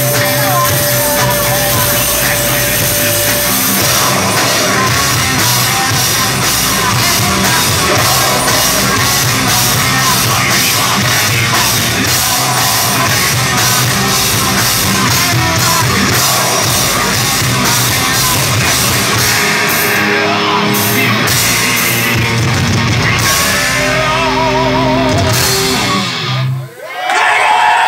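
A heavy metal band playing live: distorted electric guitars, bass and drums with a singer. The band stops abruptly about a second and a half before the end.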